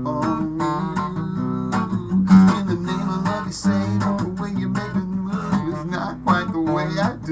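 Acoustic guitar strummed in a steady rhythm, its chords ringing between strokes.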